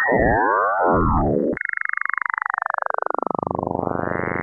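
Additive image-to-sound synthesis from the Paint2Sound app, many summed sine waves sounding as crossing, curving pitch glides. About a second and a half in these cut off and give way to a dense downward sweep, then a cluster of tones rising near the end.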